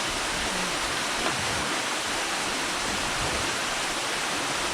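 Waterfall pouring onto rocks and a pool: a steady, even rush of falling water.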